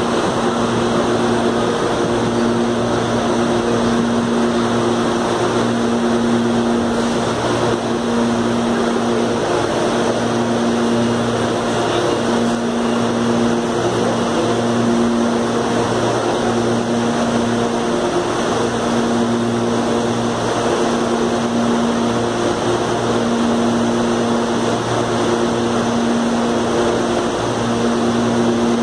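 Stationary electric commuter train's onboard equipment humming steadily, a pitched drone that breaks off and comes back about every second and a half.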